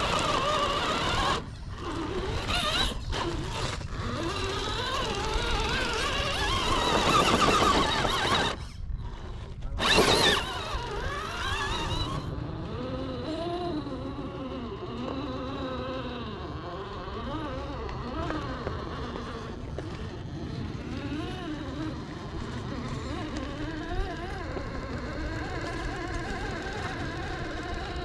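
Electric whine of the RC crawler's brushed 540 motor and geartrain, rising and falling in pitch with the throttle. It cuts out briefly several times in the first ten seconds, then carries on quieter and steadier as the truck crawls slowly over the rocks.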